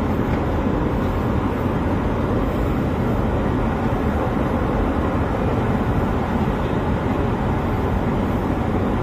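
Moving walkway running, heard while riding it, as a steady low rumble.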